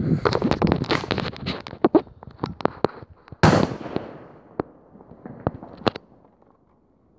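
3-inch Red Wave fireworks shell going off on the ground: a rapid string of sharp pops and crackles that thins out, one louder bang about three and a half seconds in, then a few scattered pops before it stops about six seconds in.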